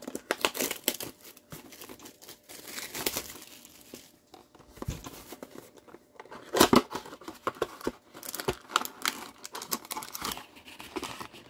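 A Panini basketball trading-card pack wrapper being torn open and crinkled by hand, in a run of irregular crackles with a louder burst about seven seconds in.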